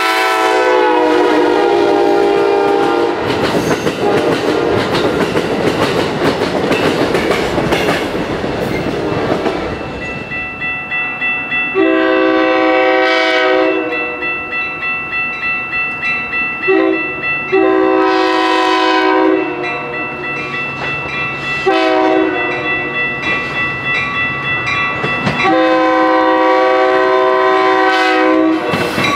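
An Amtrak Siemens Charger passenger train passes with its horn sounding for about three seconds, then the rumble and clickety-clack of its cars going by. After that a Metra commuter train's horn blows the grade-crossing signal (long, long, short, long) as it approaches, with a crossing bell ringing steadily between the blasts.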